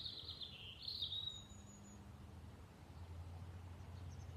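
A songbird warbling in the garden for the first second and a half, over a steady low background rumble that grows slightly louder near the end.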